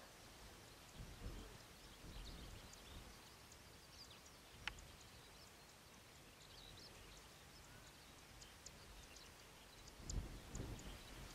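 Faint outdoor rural ambience: a low hiss with scattered, faint high chirps of distant birds and one sharp tick a little before the middle. Low rumbles come about a second in and again near the end.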